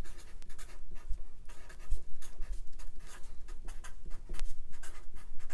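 Marker pen writing on paper: a run of short scratchy strokes as letters are written out one after another.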